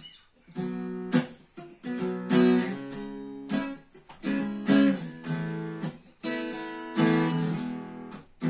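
Acoustic guitar strummed in a steady rhythm, chords changing every second or so, as the instrumental intro of a song.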